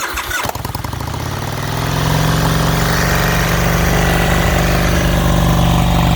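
A 2000 Excelsior-Henderson's fuel-injected V-twin cold-starting: after a brief crank it catches about half a second in, climbs in speed and loudness over the next second or so, then runs at a steady fast idle, the high idle of a cold engine.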